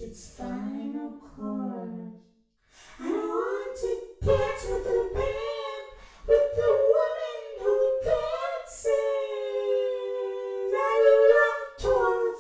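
Unaccompanied voice singing: a low phrase, a short break about two seconds in, then higher, long-held notes.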